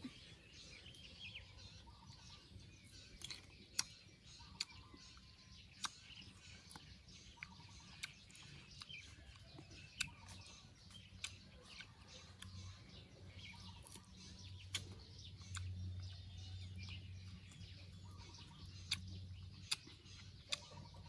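Crisp crunches of a person biting and chewing slices of raw green mango, a sharp crunch every second or two, with birds chirping in the background.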